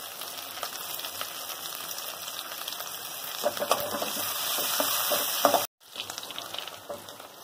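Chopped green chillies and curry leaves sizzling in hot oil in a kadai. A metal slotted spatula stirs and scrapes them from about halfway in. The sound drops out suddenly for a moment near the end, then the sizzle comes back quieter.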